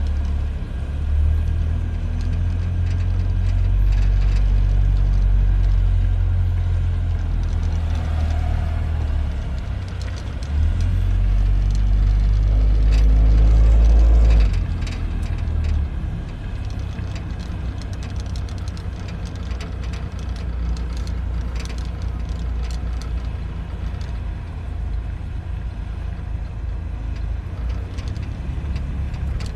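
Road noise from riding in a moving vehicle, with a heavy uneven low rumble of wind buffeting the microphone that is loudest in the first half and eases suddenly about halfway through, leaving a steadier hum of travel.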